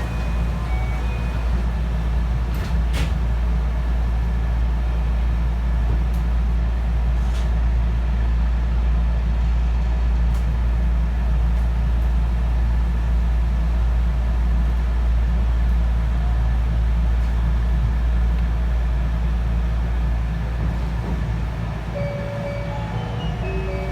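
Steady low hum and noise inside a JR 223 series electric train car, with a few faint clicks in the first few seconds. Near the end a short melody of electronic chime tones begins.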